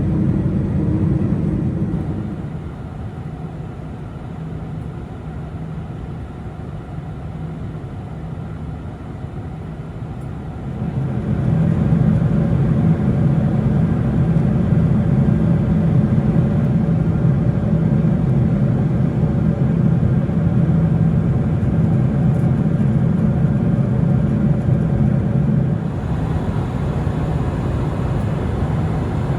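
Cabin noise inside a Boeing 747-400 airliner: a steady low rumble of engines and airflow. It drops quieter a couple of seconds in, comes back louder and steady at about eleven seconds, and eases slightly near the end.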